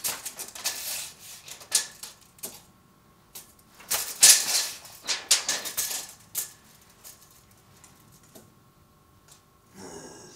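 Handling noise from work in a barn: a run of sharp clicks, knocks and rattles, loudest about four seconds in and thinning out after about six seconds.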